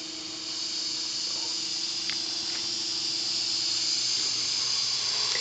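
Ingersoll Rand T30 7.5 hp upright air compressor reaching its 175 psi cut-out: a steady hum stops about four seconds in, while a loud hiss of air rises.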